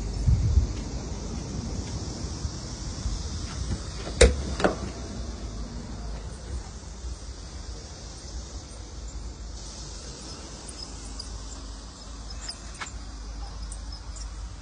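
Two sharp clicks about four seconds in, from the door latch of an enclosed electric tricycle being opened. They sit over a low rumble of wind and handling on the microphone and a steady high hiss.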